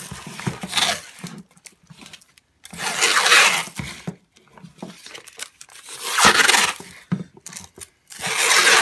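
Masking tape being pulled off the roll in long strips: a ripping sound about every three seconds, four times.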